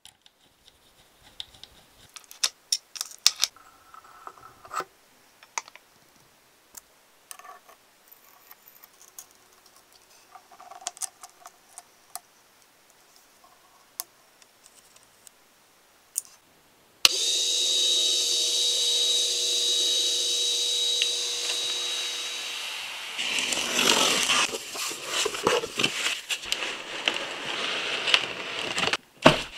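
Small metal parts of an all-metal engine model kit clicking and ticking as they are fitted by hand with a small screwdriver. About 17 seconds in, a small motor starts abruptly and runs with a steady whine for about six seconds. Near the end, crinkly plastic air-cushion packaging crackles as the kit is unpacked.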